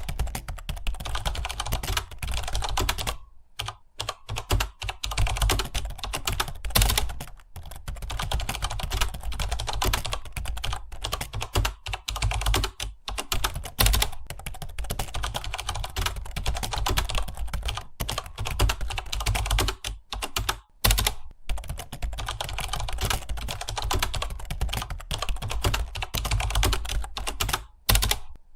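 Computer keyboard typing: fast, continuous keystrokes with a few short pauses, around three to five seconds in and again near the end.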